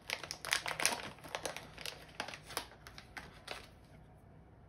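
Crinkling and rustling of plastic packaging being handled in quick irregular bursts, stopping about four seconds in.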